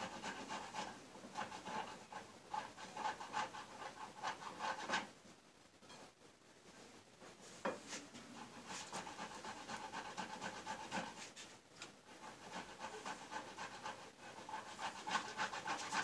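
Boiled potato being grated on a box grater onto a plate: quick, repeated rasping strokes. There is a pause of a couple of seconds about five seconds in, then the grating resumes.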